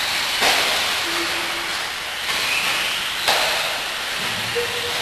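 Electric RC off-road buggies racing on a dirt track: motor whine rising and falling over a steady hiss, with two sharp knocks, about half a second in and just after three seconds.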